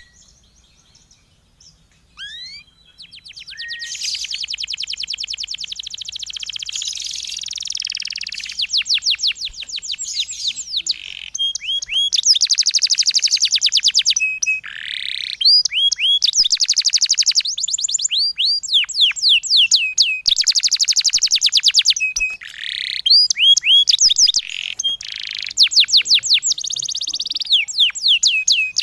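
Songbird singing long, rapid-fire trills of quick repeated high-pitched notes, each sweeping downward, broken by brief pauses and single whistles. These are the 'tembakan' (shooting) phrases played as tutor song for white-eyes (pleci). A few scattered notes open the passage, and the fast trills start about four seconds in.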